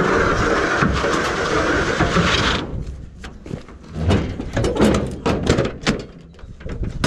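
A steady rushing noise for about the first two and a half seconds, which stops abruptly. It is followed by a series of sharp metallic knocks and clanks as the aluminium tailgate of a truck body and its latches are handled.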